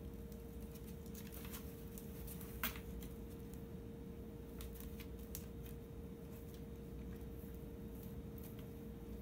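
A cat rummaging inside a cardboard box: scattered dry scratches and crackles on the cardboard, the sharpest about two and a half seconds in.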